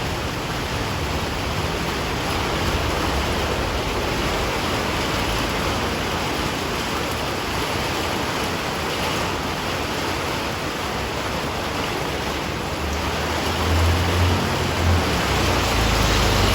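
Heavy rain falling steadily, an even hiss. A low rumble swells near the end.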